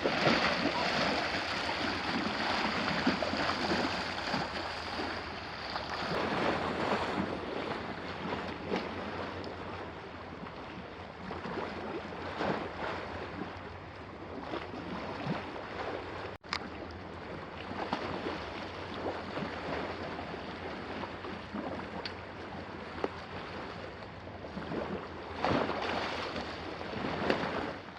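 Sea waves washing onto a beach, swelling and easing every few seconds, with wind noise on the microphone.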